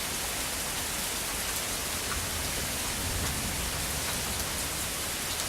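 Steady rain falling and pattering on surfaces, with scattered drop ticks.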